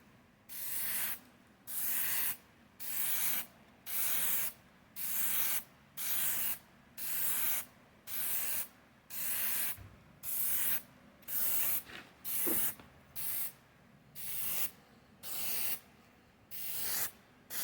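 Aerosol spray-paint can (paint and primer) sprayed in short, even passes: a hiss of about half a second, repeated roughly once a second with brief pauses between, as paint is laid on in light coats.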